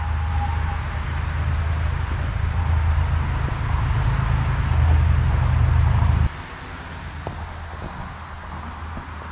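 Loud, steady low rumble that cuts off suddenly about six seconds in, leaving a quieter outdoor background with insects chirping.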